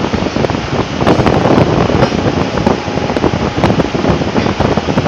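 Steel re-rolling mill running: a loud, continuous machine din with a rapid, irregular clatter of steel bars.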